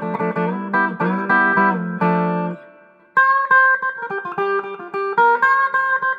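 G&L Comanche electric guitar with Z-3 pickups, played clean through an amplifier. Chords are struck in a quick rhythm, then let ring and fade. About three seconds in, a picked single-note line begins.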